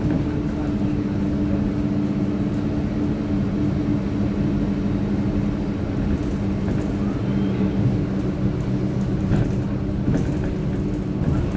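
Inside a Stagecoach bus in service: the engine runs with a steady low hum, along with road and cabin noise and a few faint squeaks.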